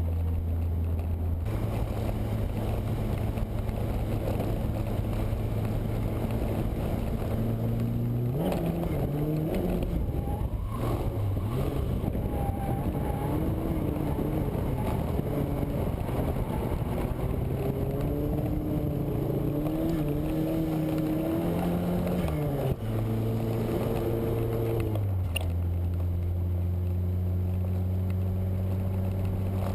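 Nissan S13's engine heard from inside the car: a steady low drone that steps up in pitch, then rises and falls several times as the throttle is worked, before settling back to a steady low drone near the end.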